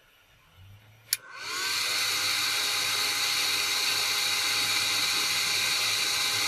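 A sharp click, then a small fan motor spins up with a rising whine and runs steadily with a rush of air. This is the fan being switched on by the controller's output.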